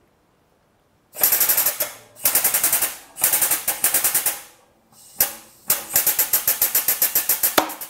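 Foot-operated pump of a hydraulic shop press chattering in quick runs of about ten ticks a second, five runs with short pauses, as the ram builds force to press the crank pin out of a crankshaft.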